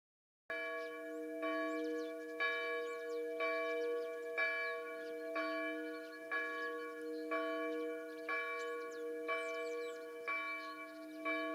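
A bell tolling, struck about once a second, each ring overlapping the last.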